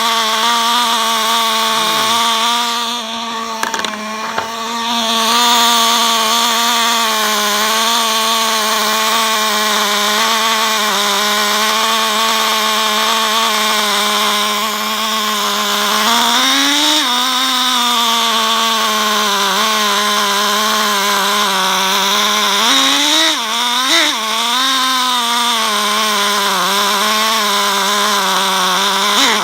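Small two-stroke nitro glow engine of an HSP Thunderfire 1/16 RC truck running steadily with a high, buzzy note, tuned a little rich; its pitch rises briefly in two short throttle blips in the second half.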